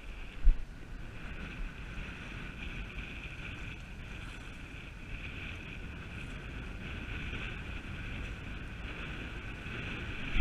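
Wind buffeting the microphone over small waves washing against jetty rocks, a steady rumble and hiss. A single brief thump about half a second in.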